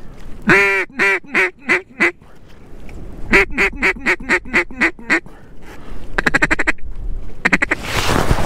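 Mallard duck call blown by a hunter: a long quack falling into a run of about six shorter quacks, then a second run of about ten quacks, then a fast rattling feeding chuckle. A rush of noise comes near the end.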